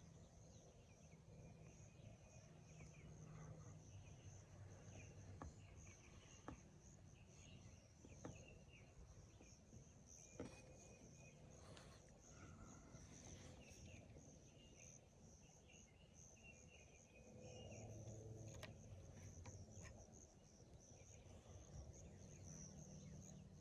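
Near silence with a faint, steady high-pitched insect trill, like crickets, in the background, and a few soft isolated clicks.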